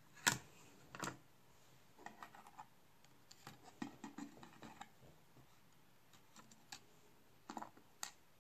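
Light, irregular clicks and taps of metal tweezers and small chips against a wooden board and a circuit board, the two sharpest near the start and a few grouped clicks in the middle and near the end.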